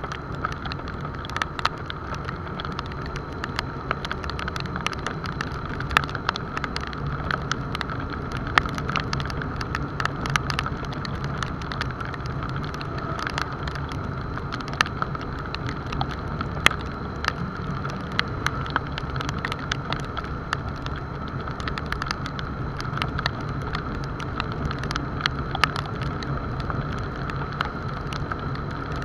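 Motorcycle engine running steadily at cruising speed on a wet road, with wind and tyre noise. Raindrops hitting the camera make irregular sharp clicks throughout.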